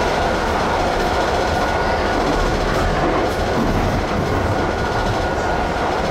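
Docklands Light Railway light-rail train running, a steady rumble of wheels on track with a faint steady whine above it.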